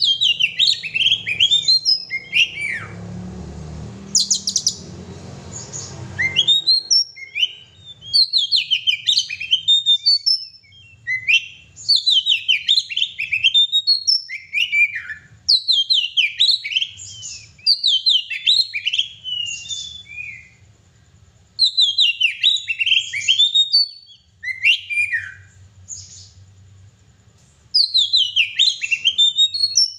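Oriental magpie-robin (kacer) in full song: loud, repeated phrases of quick, falling high notes about two seconds long, separated by short pauses.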